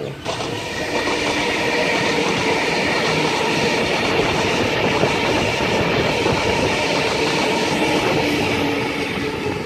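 Sydney Trains Waratah electric train moving past close by the platform: wheels rumbling and clacking on the rails under a steady whine. The sound comes up sharply just after the start and drops away near the end.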